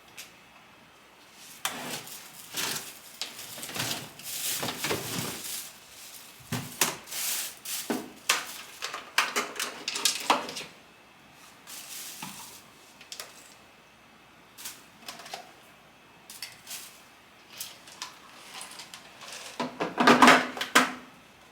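Irregular clicking, clattering and rustling handling noises, with no vacuum motor running; the loudest cluster comes near the end.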